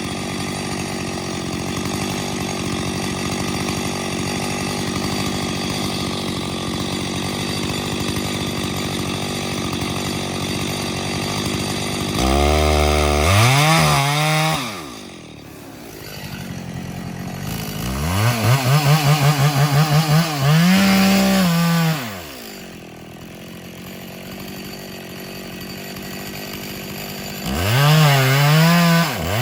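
Two-stroke chainsaw running steadily at low speed, then revved up hard three times, each for a few seconds, and dropping back between, as it cuts into the trunk of a large pine being felled.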